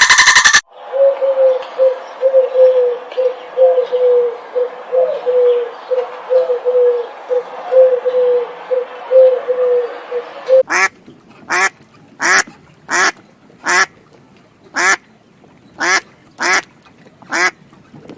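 Ducks quacking: first a steady run of short, low quacks over a hiss, then from about eleven seconds in a series of about nine loud single quacks, each under a second apart.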